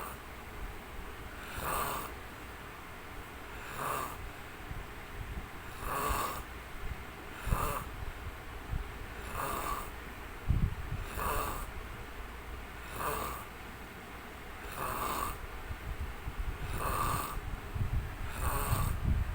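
A sleeping man snoring, one short rasping snore about every two seconds in a steady rhythm. A few low thumps come through in the middle and near the end.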